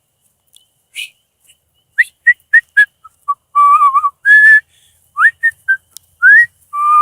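A person whistling to call a dog: runs of short rising whistle notes, with a few longer, wavering held notes around the middle and at the end.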